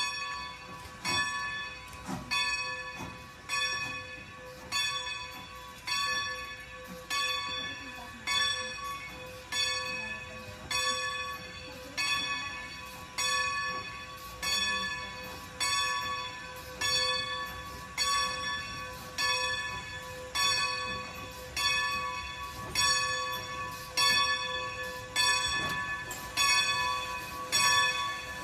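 Great Western No. 90 steam locomotive's bell ringing steadily, about one strike a second, as the engine moves slowly up to couple. The strikes grow louder as the locomotive draws near.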